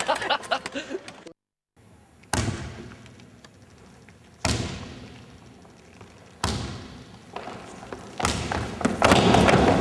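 Three heavy booming thuds about two seconds apart, each ringing away slowly, followed near the end by a louder, denser sound building up.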